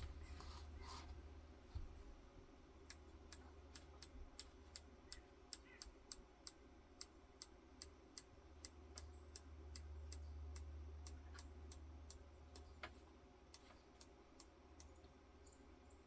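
Crossbow scope elevation turret being turned down one detent at a time: a long, even run of about thirty faint clicks, roughly two and a half a second. This is the sighting-in correction that brings the bolt's impact down toward the centre of the target.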